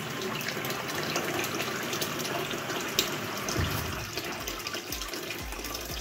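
Steady stream of water pouring from a water heater's drain valve into a plastic bucket already holding some water, as the tank is flushed with the cold supply opened full blast to stir up sediment from the bottom. A single sharp tick about halfway through.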